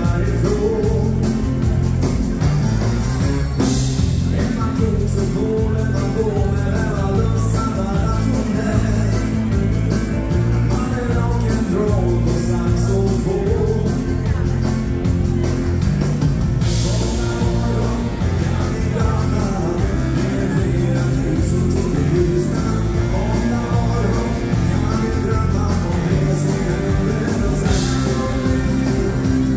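A dansband playing live: a male singer with electric guitar, keyboards and drums over a steady beat.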